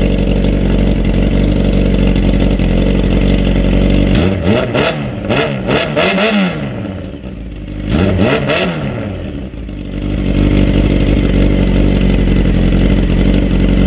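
1995 Honda CBR600F3's inline-four engine running through a new shorty exhaust with a dB cutter baffle, a lot louder pipe: idling, revved up and back down about four seconds in and again about eight seconds in, then settling back to idle.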